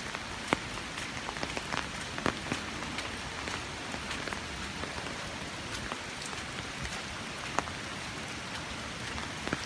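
Heavy rain falling steadily: an even hiss with scattered sharp ticks of drops striking close by.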